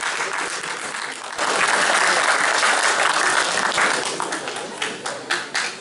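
Audience applauding. The clapping swells about a second and a half in, then thins to a few scattered claps near the end.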